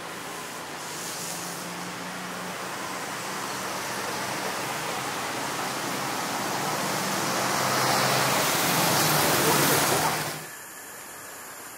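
Street traffic: a motorcycle engine hums steadily under road and tyre noise that swells louder, then the sound cuts off abruptly about ten seconds in.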